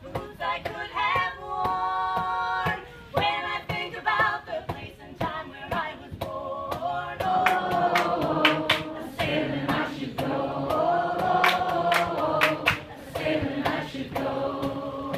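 Three women's voices singing a folk song in close harmony, with hand claps keeping a steady beat.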